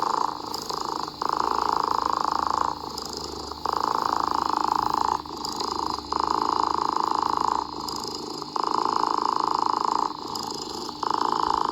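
A cat purring in a steady rhythm, swelling louder for about a second and a half, then softer for under a second, about every two and a half seconds.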